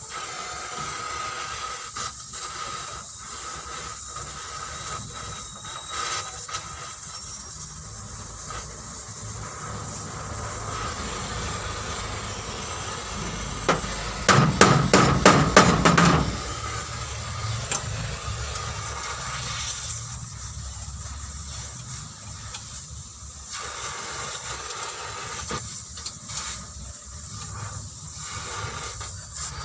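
Steady hissing workshop noise, broken about halfway through by a quick burst of rapid knocks lasting about two seconds, typical of hammering during car body repair.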